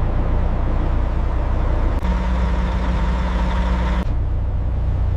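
Ship's engine running with a steady low rumble. The sound changes abruptly about two and four seconds in, with a steady hum added in between.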